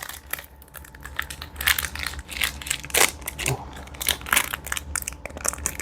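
Candy bar wrapper crinkling and crackling in irregular bursts as a Mr. Big chocolate bar is worked out of it, the sticky caramel bar stuck inside.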